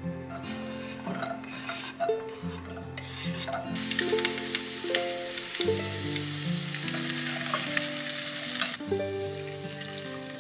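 Chopped onions sizzling and crackling in hot oil in a frying pan. The sizzle starts suddenly about four seconds in and dies down near nine seconds, over background music.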